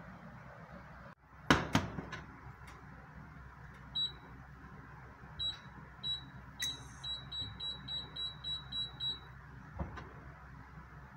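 A frying pan knocks twice as it is set down on a flat-top electric cooktop. The cooktop's touch controls then beep: a few single beeps, then a quick even run of about eight as the heat setting is stepped up.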